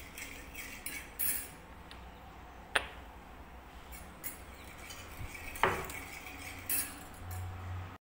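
Steel spoon stirring salt into water in a small stainless steel bowl, clinking against the bowl's sides now and then, with two sharper clinks about three seconds apart.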